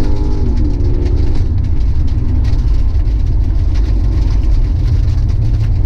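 Car engine running with a loud, steady low rumble; a few held tones die away in the first second or so.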